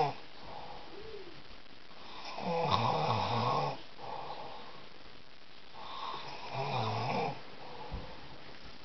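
A man snoring in his sleep: two long snores about three and a half seconds apart, with quieter breathing between them.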